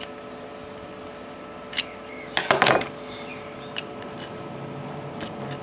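Handling of a GU10 LED lamp's parts during a teardown: a few small clicks, with a short burst of clicking and scraping about two and a half seconds in.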